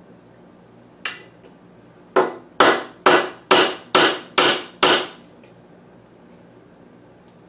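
Carpenter's claw hammer peening a brass rivet on a brake shoe, the rivet backed by a socket clamped in a steel bench vise. One lighter tap about a second in, then seven quick blows about two a second, each ringing briefly.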